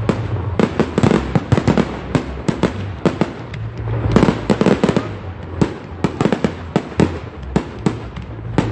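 Fireworks going off in a rapid, irregular string of sharp bangs, with dense clusters about a second in and again around four to five seconds in, over a steady low rumble.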